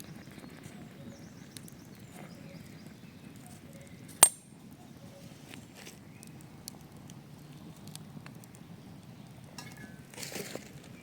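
A single sharp clink about four seconds in, with a brief high ring, over a steady low outdoor background with small scattered ticks and a short rustle near the end.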